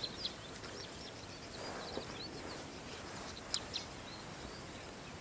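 Small birds chirping and twittering continuously in many short high calls, with two sharp clicks about three and a half seconds in.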